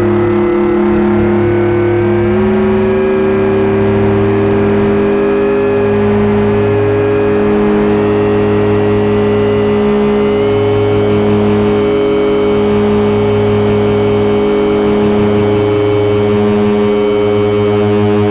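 Loud electronic drone noise from a Hewlett-Packard 200C audio oscillator and frequency analyzers. A held tone steps up in pitch about two seconds in, over low tones that pulse on and off about every two seconds, and the higher tones step upward about halfway through.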